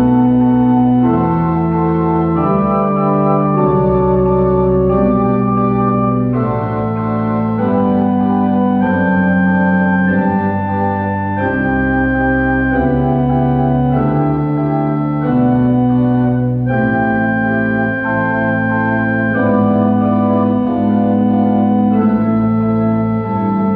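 Church pipe organ playing a slow piece in full sustained chords, the harmony moving about once every second or so.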